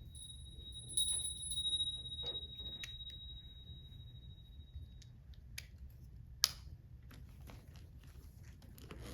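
A single high, steady ringing tone holds for about five seconds and then stops, amid faint clicks and rustles; a sharp click comes about six and a half seconds in.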